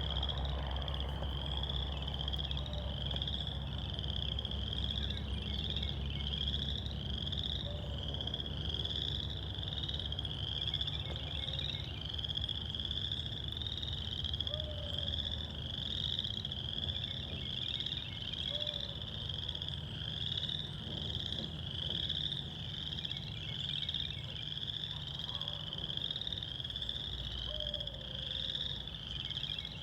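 Frogs calling in a steady chorus: a high-pitched pulsing call repeating evenly, with short lower calls every few seconds, over a low steady rumble.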